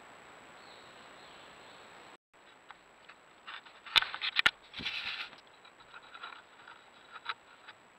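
Steady hiss from the trail camera, then raccoons moving through forest-floor litter: scattered rustles and patters with a few sharp knocks, the loudest pair about four seconds in, followed by a brief burst of rustling.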